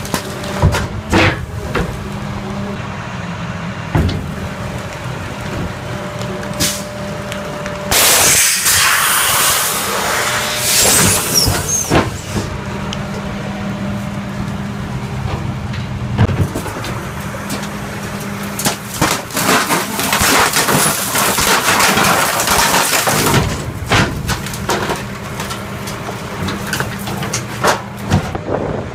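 Garbage truck's hydraulic packer blade compacting trash in the hopper: the truck's engine and hydraulics run steadily while the load cracks and crunches, with scattered sharp snaps and two long, loud stretches of crushing, about eight and twenty seconds in.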